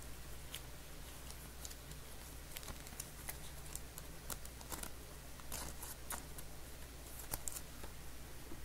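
Faint, scattered clicks and light rustles of glossy Panini Mosaic football cards being handled and set down on a stack, over a steady low hum.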